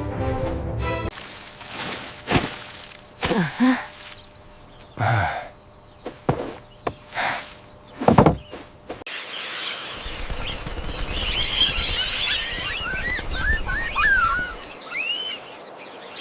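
A string of short thuds and whooshes, several with a falling pitch. About halfway through they give way to birds chirping over a steady outdoor background. Music fades out in the first second.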